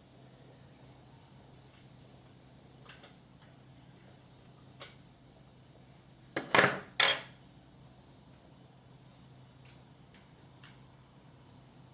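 Small hard objects being handled: a few light clicks, then three sharp metallic clatters in quick succession about six and a half seconds in, the loudest sounds here.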